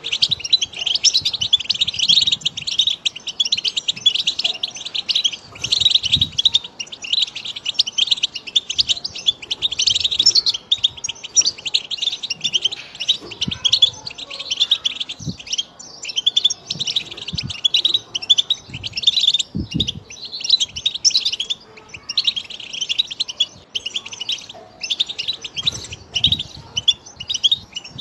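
European goldfinch song: a rapid, continuous twittering of chirps and trills, broken now and then by short pauses.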